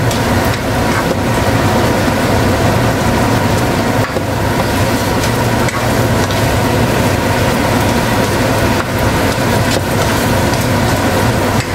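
Chicken livers and gizzards sizzling in a non-stick wok while a spatula stirs and scrapes them, with a few light clicks of the spatula against the pan over a steady low hum.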